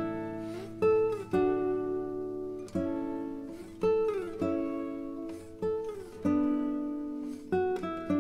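Background music: a guitar playing slow plucked notes, each ringing out and fading, with a few notes sliding in pitch.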